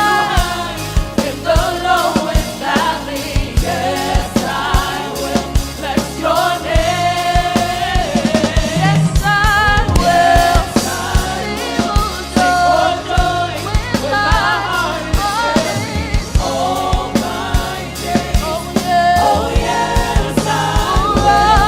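A gospel choir singing a worship song with a band: several voices over a steady drum-kit beat and bass.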